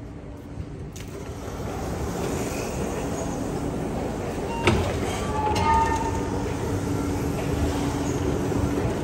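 Steady low rumble inside a metro station, growing louder over the first couple of seconds. About halfway through there is one sharp click, followed by a few brief high tones.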